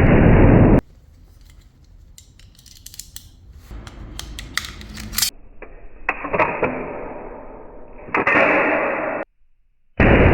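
Converted Colt 1911 blank pistol being fired, with a loud blast lasting about a second at the start. After it come a few seconds of sharp metallic clicks and handling of the gun, then two more loud blasts around six and eight seconds in, the last cutting off abruptly.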